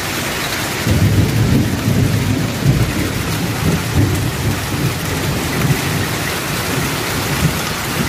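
Hail and rain falling with a steady hiss. From about a second in, gusts of strong wind buffet the microphone with irregular low rumbles.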